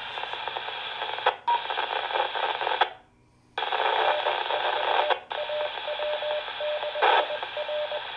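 Handheld 2-meter FM ham radio receiving a weak repeater signal: mostly static hiss in the narrow radio band, cutting out to near silence for about half a second around three seconds in as the squelch closes, then opening again.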